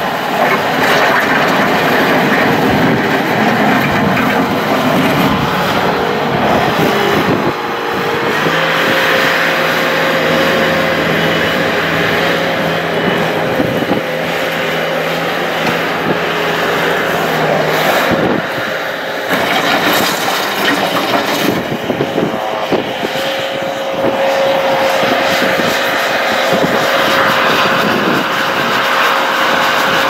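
2005 Bobcat S300 skid steer's diesel engine running hard as the machine drives and turns on gravel, with a steady whine over the engine noise.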